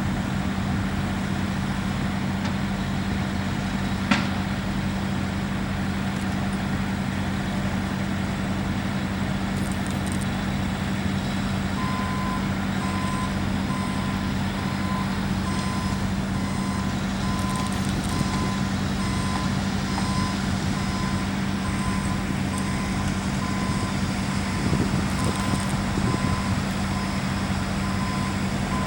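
Heavy diesel truck engines running steadily at a concrete pour, over a haze of distant highway traffic. About twelve seconds in, a truck's reversing alarm starts beeping at an even pace and keeps going. A single sharp knock comes about four seconds in.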